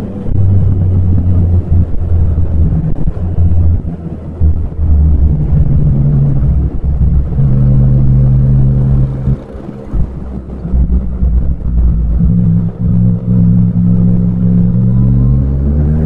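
Yamaha MT-09's inline three-cylinder engine running under way, its pitch holding and shifting with the throttle. The sound drops off briefly about ten seconds in, then the revs climb steadily near the end as the bike accelerates.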